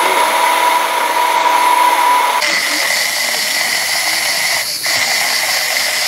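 Electric stick blender running in a glass beaker of oil, blending the base for a lavender salve: a steady motor whine whose pitch shifts about two seconds in.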